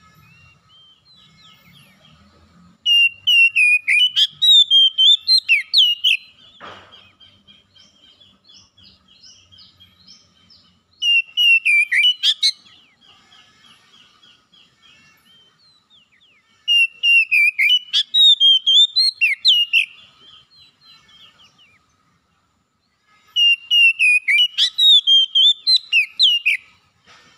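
Oriental magpie-robin singing: four loud phrases of rapid, rising and falling whistled notes, about five seconds apart, with soft twittering between them.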